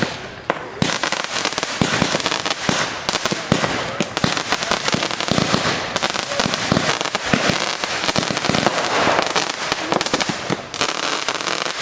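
Fireworks display: a dense, continuous barrage of rapid bangs and crackling shell bursts that thins out near the end.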